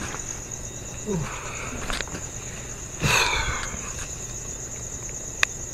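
Crickets chirping in a steady high-pitched drone. A brief hiss-like noise comes about three seconds in, and a single sharp click near the end.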